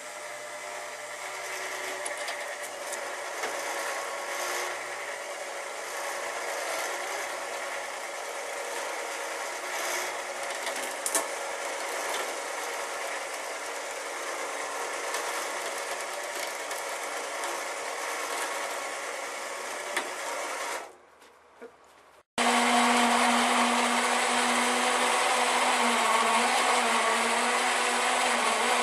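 Homemade firewood processor running: a steady mechanical drone with several steady tones. It cuts out briefly about three-quarters of the way through, then comes back louder and with a different pitch.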